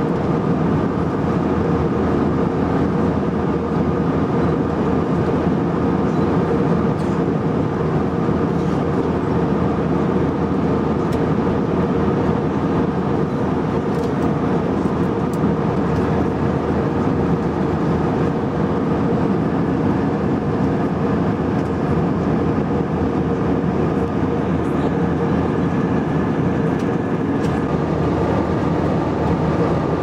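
Steady cabin noise of a jet airliner in flight, heard from inside the passenger cabin: engines and rushing air with a constant hum, and a few faint ticks.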